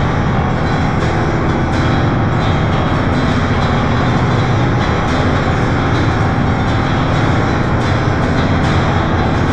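Dark, ominous horror-style background music: a dense, deep rumbling drone with faint hits scattered through it.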